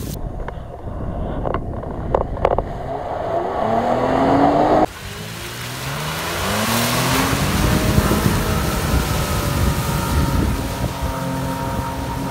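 Mitsubishi Pajero Sport SUV engine revving as the truck drives off-road, rising in pitch as it accelerates, with a few sharp knocks early on. About five seconds in, the sound cuts abruptly to the engine climbing again under a wash of noise, and near the end the truck wades through water.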